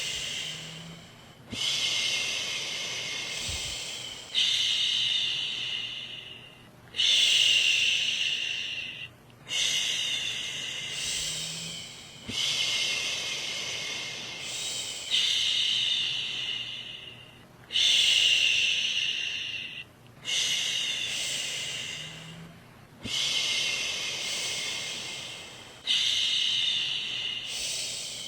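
A woman's voice making long "shhh" shushing sounds to soothe a baby to sleep, repeated about every three seconds. Each shush starts strong and fades away before a brief breath-gap and the next one.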